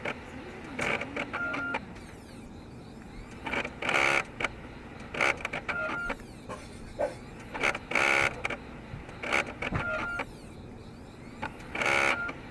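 Sony BDZ-AT770T Blu-ray recorder's disc drive making abnormal mechanical noises while trying to recognise a blank BD-R: loud clattering bursts about every four seconds, each cycle with a brief steady whine. The uploader takes it for a fault in the drive's media-recognition routine, since the disc later formats normally.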